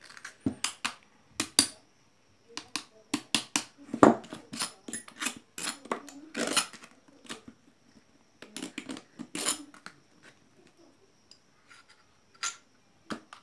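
Irregular metal clinks and knocks from a small single-phase induction motor's casing and end cover being handled and taken apart, with one louder knock about four seconds in.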